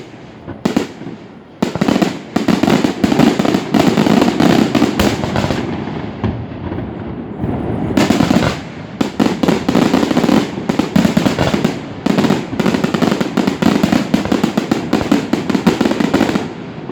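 Fireworks display heard through a phone's microphone: rapid volleys of bangs and crackling shells, starting about a second and a half in, easing briefly around the middle, then a fresh dense barrage.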